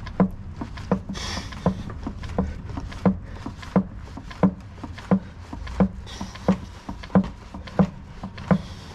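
Hand pump being worked in steady strokes, about three every two seconds, pushing gear oil into a Land Rover Defender axle differential through its filler plug until it reaches the level.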